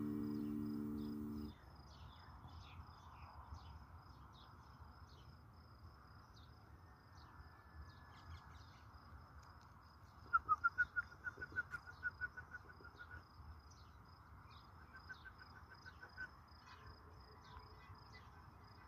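Faint outdoor ambience: insects chirping steadily in a high, fast pulse, with a bird giving a quick run of short, clear call notes about ten seconds in and a fainter run a few seconds later. Background music ends about a second and a half in.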